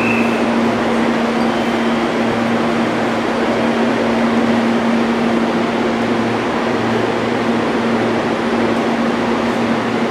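Steady hum of a red Meitetsu electric train at the platform: its onboard equipment gives a constant tone over a wash of even machinery and station noise.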